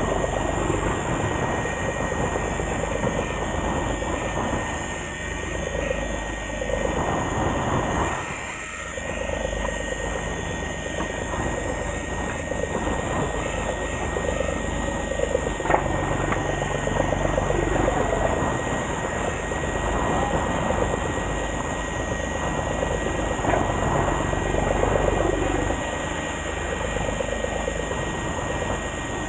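Steady low rumble of a fishing boat at sea, wind and engine drone on the camera microphone, with a faint steady high tone throughout.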